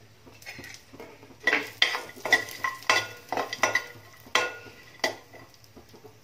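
A metal spoon stirring and scraping chopped cashews, almonds and charoli nuts as they fry in a little ghee in a metal pan. It makes about eight ringing clinks and scrapes against the pan, starting about a second and a half in.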